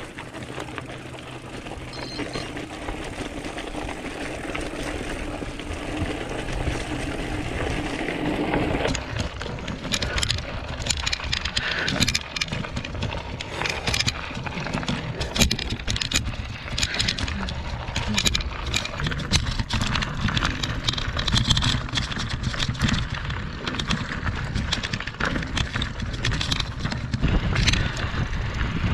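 Trek mountain bike rattling and clattering over a rocky dirt trail, with low wind rumble on the microphone. From about nine seconds in, frequent sharp clicks and knocks as the bike jolts over stones.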